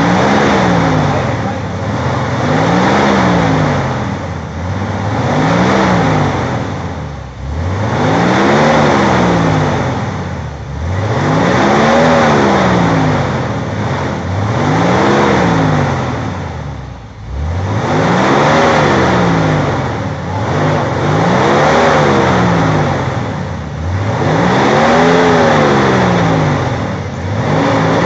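Off-road 4x4's engine revved up and let back down over and over, about nine times, roughly once every three seconds, with a steady rushing noise beneath.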